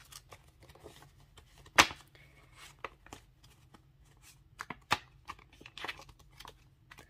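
Paper banknotes rustling and flicking as they are counted by hand, with the crinkle of clear plastic cash-envelope sleeves. A string of short, uneven crackles, the sharpest a little under two seconds in.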